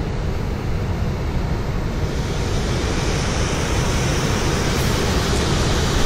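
Steady roar of Gullfoss waterfall, the river crashing into its gorge, heard close up with wind rumbling on the microphone.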